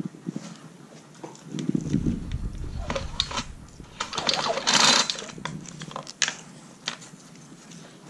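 Recoil starter pulled on a Troy-Bilt four-cycle string trimmer, the engine cranking over with its spark plug out for a spark check. It is heard as two pulls, about two seconds in and about four to five seconds in, the second the louder.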